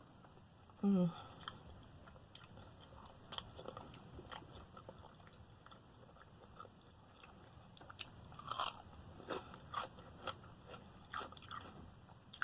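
Close-up eating sounds of a person biting and chewing crispy fried chicken: scattered crunches and mouth clicks, denser later on, with a brief vocal sound about a second in.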